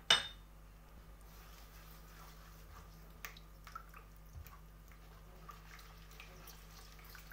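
A sharp tap right at the start, then a hand mixing a runny mixture of eggs, milk and oil in a large bowl: faint wet squelches and small drips.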